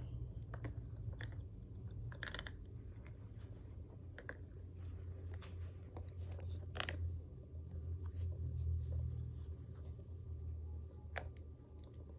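Terrier puppy gnawing a rubber chew toy, with scattered clicks and scrapes of teeth on the rubber over a low, continuous growl that swells about eight to nine seconds in.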